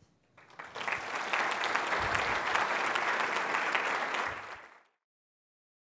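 Audience applause, rising about half a second in and then cut off suddenly near the end.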